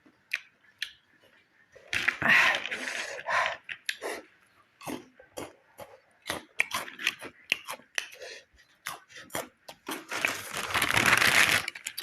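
Close-up crunching and chewing of crisp packaged chips, a run of sharp crunches. Two longer, louder stretches of crunching and rustling noise come about two seconds in and again near the end.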